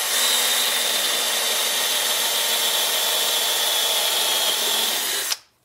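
Craftsman V20 cordless drill boring a hole through a heavy-duty steel fence post bracket, running at a steady speed with a steady whine, then stopping suddenly near the end.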